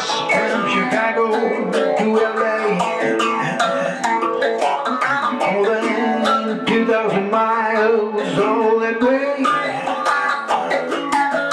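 Hollow-body electric guitar playing a rhythmic rock-and-roll part, with dense notes and no break.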